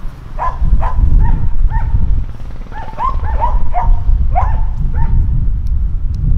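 A dog barking repeatedly, about a dozen short barks that come faster around the middle, over a steady low rumble.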